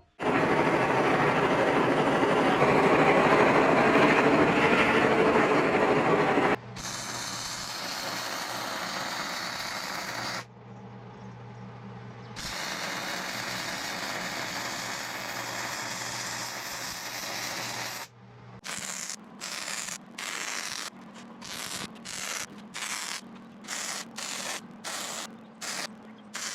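Electric welding arc crackling and hissing as a new cutting edge is welded onto a skid steer bucket, loudest for the first six seconds, then steadier and quieter. From about two-thirds of the way in, the arc comes in short stop-start bursts, about one and a half a second, typical of stitch welding to keep the puddle from running.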